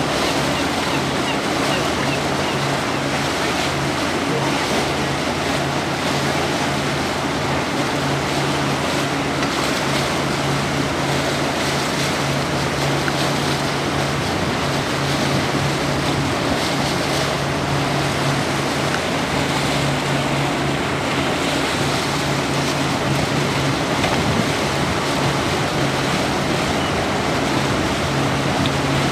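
A boat's engine running steadily at low speed with a low hum, under a constant rush of water and wind.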